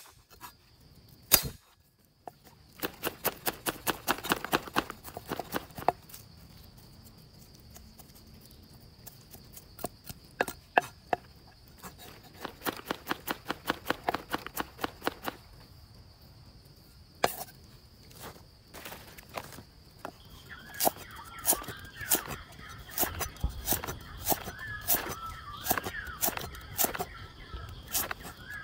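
A steel meat cleaver chops garlic and other aromatics on a round wooden chopping block. The strokes come in quick runs of about six a second, with pauses between the runs.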